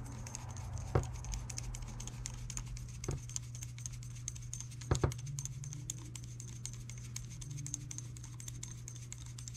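Small hex screwdriver turning a screw into a carbon-fibre quadcopter frame: faint ticking of the tool and parts, with a few sharper clicks about one, three and five seconds in, over a steady low hum.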